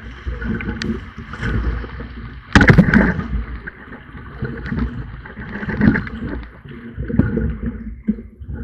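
Water sloshing and gurgling in and around a swamped canoe drifting in choppy river current, in uneven surges with a louder, sharper burst about two and a half seconds in.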